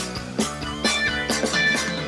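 Instrumental band music with a steady beat of about two strokes a second: the closing bars of a romantic song, with no singing.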